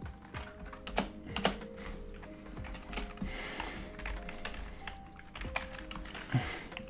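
Typing on a computer keyboard: irregular keystroke clicks, with a couple of louder ones about a second in.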